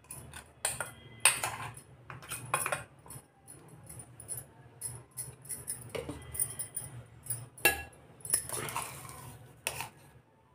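A metal spoon clinking and scraping against a stainless-steel mixer-grinder jar and a glass bowl while ground breadcrumbs are knocked out of the jar. The clinks are irregular, and there is a longer scrape near the end.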